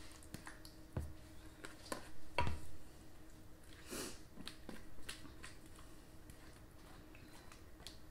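Thick, creamy chicken pot pie filling being scraped with a spatula out of a mixing bowl into a casserole dish: soft wet squishing and scraping with light clicks, and two knocks of the bowl or spatula about one and two and a half seconds in. A faint steady hum runs underneath.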